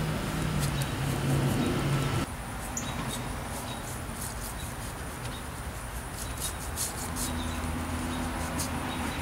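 Paintbrush working chalk paint onto a wooden chair in quick short strokes, with faint scratchy brushing ticks throughout. A low steady hum cuts off suddenly about two seconds in.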